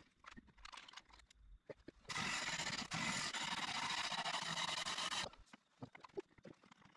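Wood lathe cut: a turning gouge cutting into a spinning wooden bowl, a steady loud scraping hiss that starts about two seconds in and stops abruptly about three seconds later. Small knocks and rustles of tool and shavings handling come before and after it.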